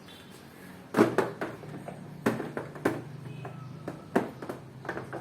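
A series of sharp clicks and knocks, as of a vacuum cleaner's parts and nozzle being handled and fitted, with a faint low hum underneath.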